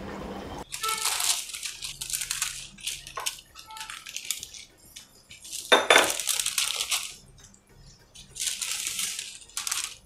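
Bursts of crackling sizzle as flattened adhirasam dough discs go into hot frying oil, with a sharper metal clank against the pan about six seconds in.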